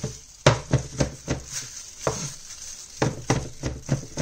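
Steel cleaver chopping garlic on a wooden cutting board: sharp knocks, about three or four a second, with a pause of about a second in the middle.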